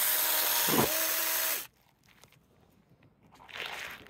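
Saker 4-inch mini cordless electric chainsaw running under load as it cuts through a thick dead stump, a steady whine that dips briefly in pitch a little under a second in, then stops abruptly about one and a half seconds in as the cut is finished. A faint brief rustle follows near the end.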